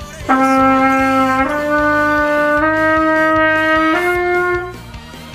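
Trumpet playing the four-note intro, D, E, F and G, as four rising stepwise notes held about a second each, over a faint backing track with a steady beat.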